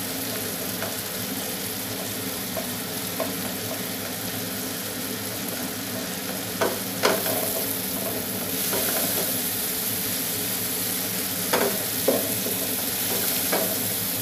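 Garlic, onion and tomato sautéing in oil in a frying pan with a steady sizzle. A wooden spatula stirs them and knocks against the pan a few times, the loudest knocks about seven and twelve seconds in. The sizzle grows a little louder about halfway through.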